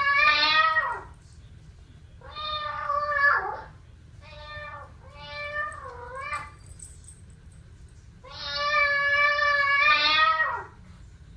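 Recorded cat meows played from an Alexa smart speaker. A long meow ends about a second in, followed by four more: two short ones close together in the middle and a long, drawn-out one near the end.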